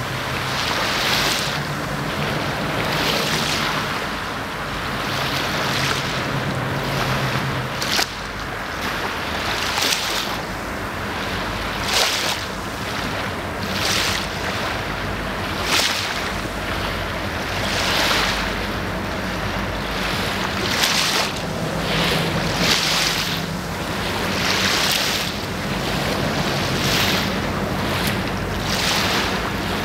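River water lapping and splashing close by in repeated washes every second or two, over a low steady hum.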